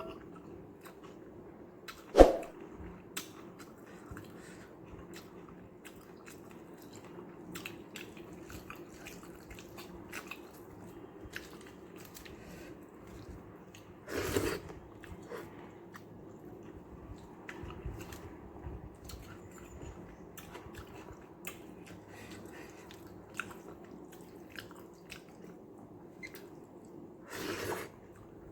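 A person eating rice with sambar close to the microphone: steady chewing with many small wet mouth clicks. There is one sharp knock about two seconds in, and two short, louder noisy sounds, one about halfway and one near the end.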